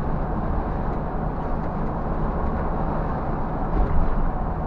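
Steady low drone of a Scania bus cruising at highway speed, engine and road noise heard from inside the driver's cab.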